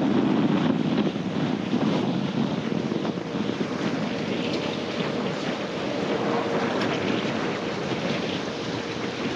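Wind buffeting the microphone over a choppy sea, with waves washing against the boat's hull. A faint steady hum comes in about halfway through.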